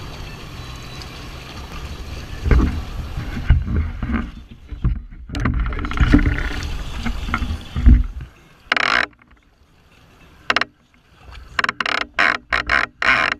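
Wind and sea water rushing on a boat at sea, with a low rumble and a few knocks. From about eight seconds in, the sound breaks into short splashing bursts cut by sudden muffled gaps, as the rod-mounted microphone dips in and out of the water.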